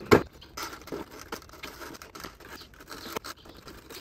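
PVC picket fence rail being worked down onto the pickets. It opens with one sharp knock, then light plastic clicks and scraping as the pickets slide into the rail.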